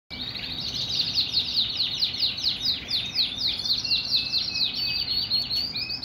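White fancy canary singing: a continuous run of quick, high, downward-sweeping notes repeated about four or five times a second, the phrases shifting into shorter rolls near the end.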